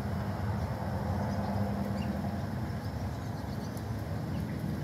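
Steady low outdoor rumble, like distant traffic, with a few faint, short high chirps scattered through it.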